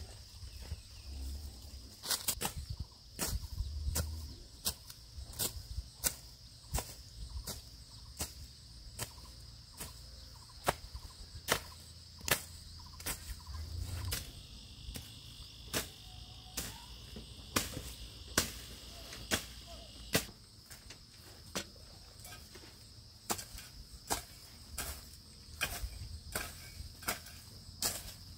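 Sharp knocks repeating about twice a second, steady throughout, over continuous high-pitched insect buzzing.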